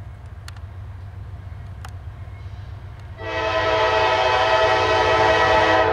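An approaching CSX diesel freight locomotive rumbling low and steady, then sounding one long horn blast about three seconds in, several notes at once, held until it cuts off at the very end.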